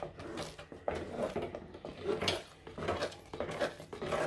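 Wooden spatula stirring and scraping thick, cooked-down fruit jam around a clay pot, in repeated strokes about two a second.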